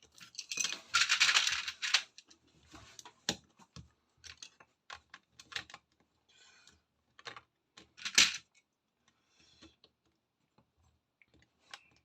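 Plastic LEGO pieces rattling as they are rummaged through, a dense jingle in the first couple of seconds, followed by scattered sharp clicks of bricks being handled and pressed together, one loud click near the end.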